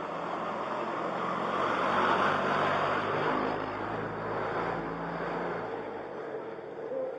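A motor vehicle passing by: engine hum and road noise swell to a peak about two seconds in, then fade away.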